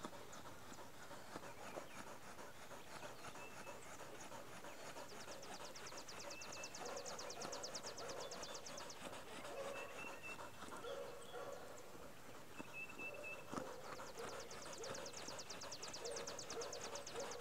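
A dog panting, with two stretches of fast, fine, even ticking.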